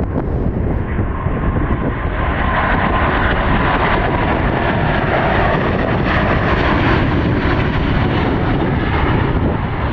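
SAS Airbus A350's Rolls-Royce Trent XWB turbofans at takeoff thrust as the airliner lifts off and climbs past. The engine roar builds from about two seconds in, is brightest around six to seven seconds, and eases slightly near the end.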